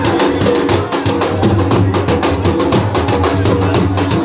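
Dhol drums beaten with sticks in a fast, steady rhythm.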